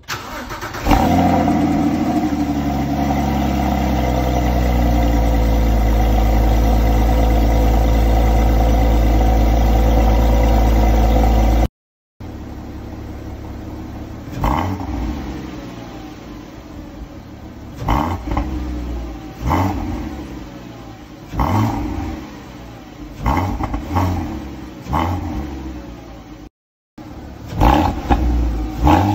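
Porsche Cayman 987.2's 2.9 L flat-six exhaust with a Fabspeed X-pipe and Carnewal GT exhaust, first running at a steady idle. Then, heard through the stock T-pipe instead of the X-pipe, a series of quick throttle blips. Near the end, back on the X-pipe, two more revs.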